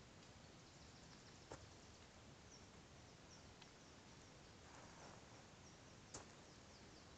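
Near silence: faint outdoor hiss with a handful of faint high chirps, roughly one a second, and a soft click of a footstep on dry leaf litter near the end.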